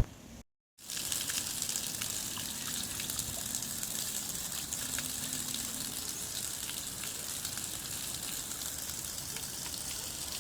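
Heavy rain falling and water running: a steady hiss with scattered sharp drip ticks, cut by a brief silence about half a second in.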